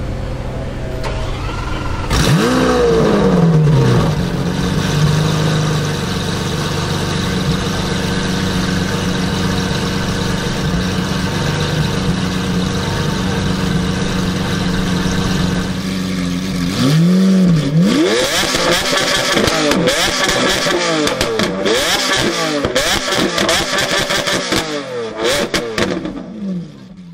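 Lamborghini Aventador's V12 starting about two seconds in with a rev flare that rises and falls, then settling into a steady high idle. From about seventeen seconds it is revved over and over in quick blips, before dropping back near the end.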